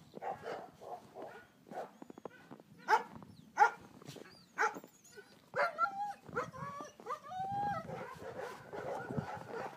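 Bernese mountain dog puppy barking: two sharp barks about three seconds in and another a second later, then a run of short, high yips that bend in pitch.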